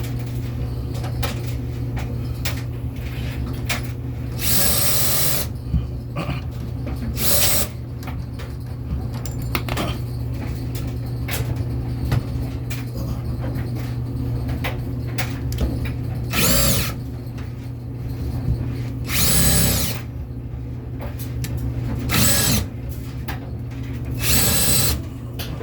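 Power drill running in about six short bursts of half a second to a second, driving screws. A steady low hum runs underneath.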